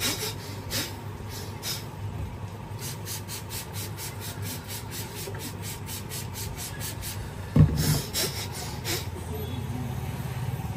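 Hands rubbing and scrubbing through damp hair in a head massage, in quick even strokes about four a second, with one loud thump about three-quarters of the way through.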